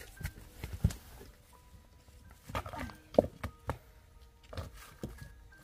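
Rocks knocking and thudding against one another as they are lifted and set down, a handful of irregular knocks, the loudest about three seconds in.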